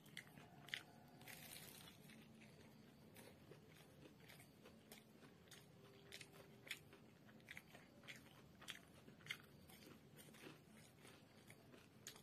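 Close-miked eating of crispy fried chicken lollipop: chewing with irregular sharp crunches, about a second apart, as the fried coating is bitten and pulled apart.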